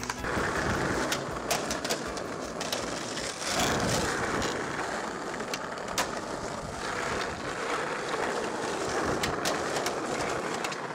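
Skateboard wheels rolling over rough street asphalt as a steady rolling noise, with scattered sharp clicks and knocks from the board and trucks.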